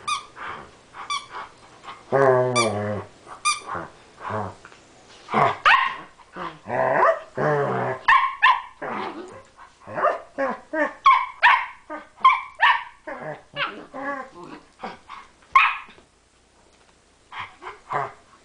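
Two rough collies, a nine-week-old puppy and an adult, play-wrestling: a rapid run of growls and short barks, with one longer growl about two seconds in. It falls quiet briefly near the end, then a few more short barks.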